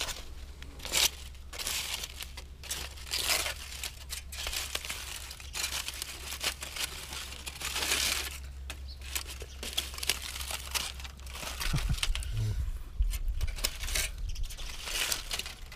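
Aluminium foil crinkling and tearing in irregular rustling bursts as foil packets, baked in wood ash, are pulled open by hand and with a stick.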